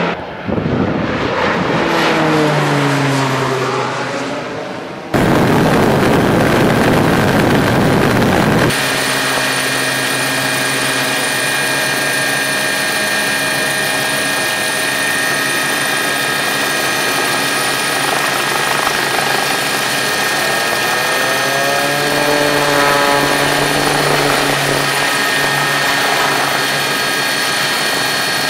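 Air Tractor 802 with a Pratt & Whitney PT6A turboprop passing close after its water drop, its engine note falling in pitch as it goes away. A few seconds of loud rushing noise follow. Then the turboprop runs on the ground as the plane taxis, a steady turbine whine with a brief rise and fall in pitch about two-thirds of the way through.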